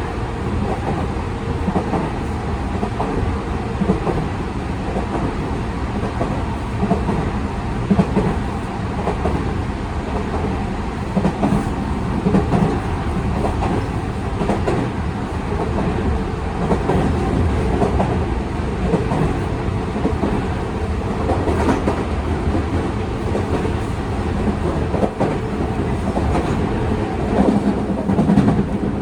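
Tokyu 5000 series electric train heard from inside a motor car while running: a steady rumble of wheels on track, with rail-joint clicks here and there.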